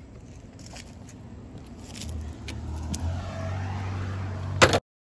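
A vehicle engine running with a low hum that grows louder from about two seconds in, ending in a sharp knock before the sound cuts off.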